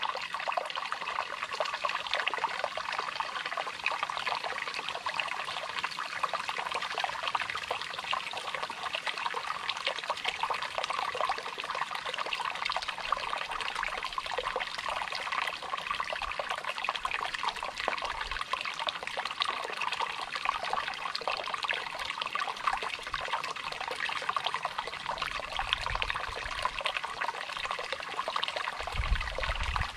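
Shallow stream trickling and babbling steadily over rocks, with a few brief low rumbles near the end.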